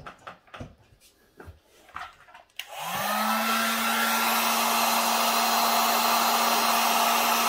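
A few light handling clicks, then about two and a half seconds in an electric heat gun switches on: its fan motor spins up quickly, rising in pitch, and then runs steadily with a loud hiss of blown air over a steady hum. It is heating shrink tubing over a soldered wire splice.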